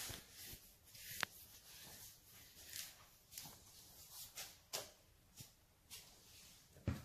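Quiet handling noises on a workbench: scattered light clicks and taps, the sharpest about a second in.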